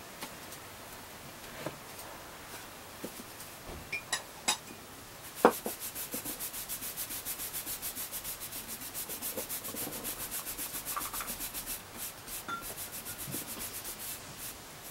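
Baren rubbed back and forth over paper laid on an inked woodblock to print a colour block: a quick, even scrubbing of several strokes a second. It starts about five seconds in after a few light knocks and thins out near the end.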